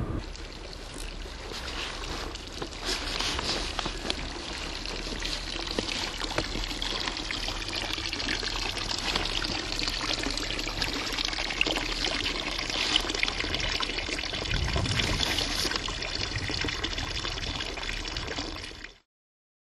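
A thin jet of water pouring steadily from a basilisk drinking fountain's spout and splashing into its water-filled basin. The sound cuts off abruptly near the end.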